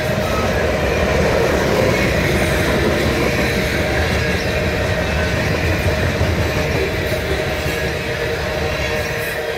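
Freight train's covered hopper cars and a tank car rolling past: a steady rumble of steel wheels on the rails, with a faint thin squeal from the wheels running through it.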